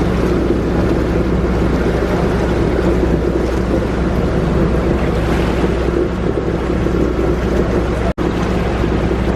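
A small passenger boat's engine running steadily, heard from the back seats, with water rushing and wind buffeting the microphone. The sound drops out for an instant about eight seconds in.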